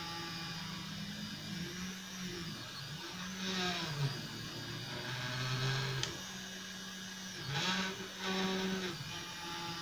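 EasyThreed X1 mini 3D printer's stepper motors whining during a print, the pitch stepping and gliding up and down every second or so as the head and bed change speed and direction.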